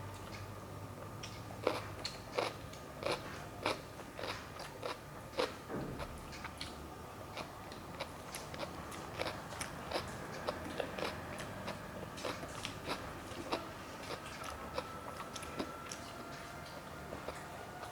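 Close-up eating sounds: a person chewing and crunching food, with many short, irregular crisp clicks, one to three a second.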